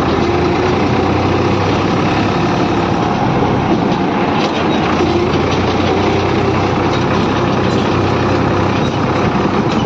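Farm tractor's diesel engine running steadily, heard from the driver's seat as the tractor drives slowly.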